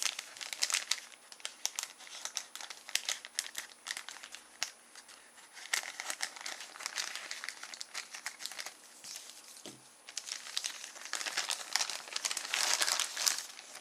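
A small postal package being torn open and handled: crinkling, rustling packaging with bursts of tearing, heaviest in two spells near the middle and near the end.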